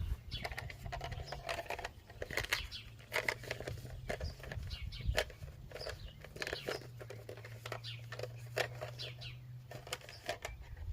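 Small birds chirping, over irregular clicks and knocks of things being handled, and a low steady hum.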